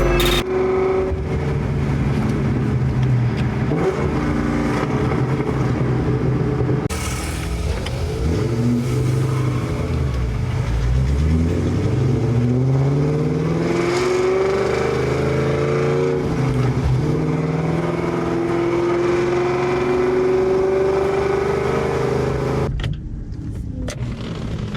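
Supercharged 4.6-litre V8 of a 2003 Mustang SVT Cobra, breathing through Kooks headers and a Borla ATAK exhaust, driving with its revs rising and falling through gear changes. The engine note settles lower and quieter near the end.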